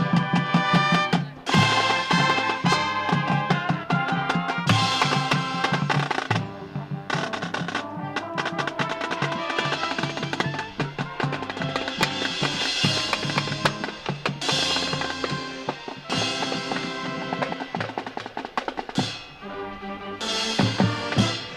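Marching band percussion section playing a loud drum feature, with snare rolls, bass drum hits and cymbal crashes over sustained wind chords.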